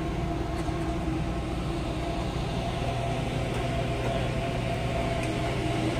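Steady mechanical hum of running machinery, with several held tones and a deeper drone that grows stronger about halfway through.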